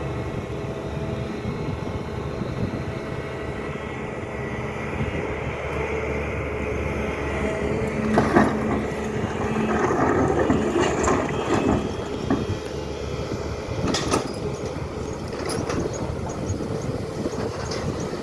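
SANY excavator's diesel engine running steadily. From about eight seconds in, metal clanks and knocks come from the arm and bucket, two of them sharper and louder, with short high squeals near the end.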